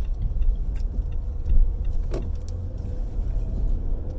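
Car cabin noise while driving: a steady low engine and road rumble, with a few light clicks and rattles.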